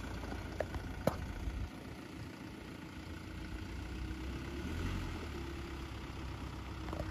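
Off-road 4x4's engine running at low revs while it is guided slowly over rough ground, with two sharp clicks about half a second and a second in.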